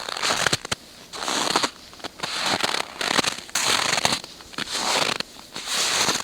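Footsteps crunching in snow: an even walking pace of about seven steps, each a crisp, crackly crunch as the snow packs underfoot.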